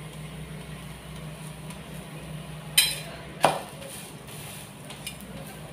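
Two sharp clinks of a steel spatula against a flat tawa griddle, about two-thirds of a second apart, over a steady low hum.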